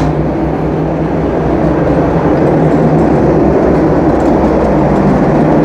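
Strong wind buffeting a phone's microphone: a loud, steady rumbling roar.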